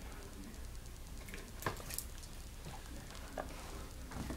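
A few faint, short clicks and rustles of handling over a quiet room hum.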